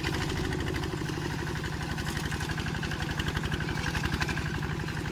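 Tractor diesel engine running steadily with an even, fast firing pulse as it pulls a three-disc plough through the soil.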